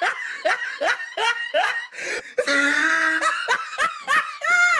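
Hearty laughter: a run of quick laughs, about four a second, then longer drawn-out voiced laughs.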